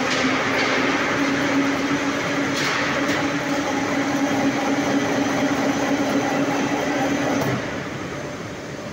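Steel rolling mill machinery running: a steady mechanical hum with rattling noise, with a couple of brief louder clatters in the first few seconds. The hum and most of the noise drop away about seven and a half seconds in.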